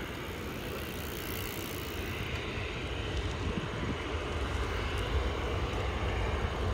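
Distant jet airliner climbing out after takeoff: a steady low engine rumble that grows slowly louder.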